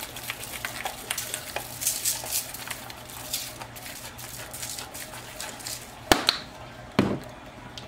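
Adobo seasoning shaken from a plastic shaker onto a foil-lined sheet pan of sliced potatoes, sausage and onion: a quick patter of light ticks for the first few seconds. Near the end, two sharp clicks about a second apart as the shaker's flip-top cap is closed.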